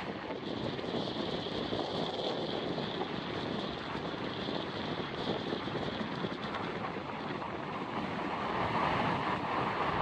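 Cold wind blowing across the microphone over the steady wash of surf breaking on a sandy beach, growing a little louder near the end.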